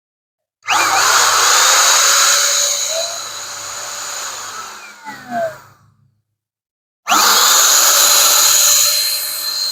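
Handheld 700-watt HVLP electric paint sprayer's turbine, switched on with a rising whine and a loud rush of air, running for about five seconds, winding down and stopping, then starting again about a second later and running on.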